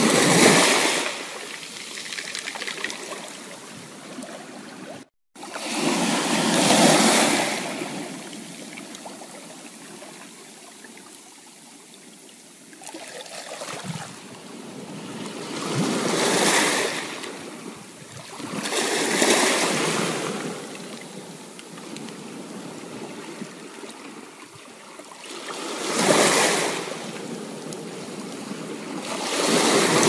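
Ocean waves breaking and washing up the shore, the hiss of surf swelling and fading about six times with a quieter wash between. The sound cuts out for an instant about five seconds in.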